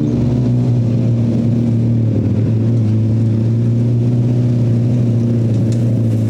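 Off-road buggy engine running at a steady speed, a constant low hum that holds one pitch throughout.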